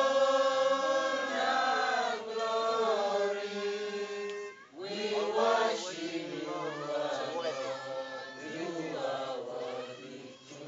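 A congregation singing a worship song together, several voices on long held notes. The singing breaks off briefly about halfway, then the voices come back in, less together and with more overlapping lines.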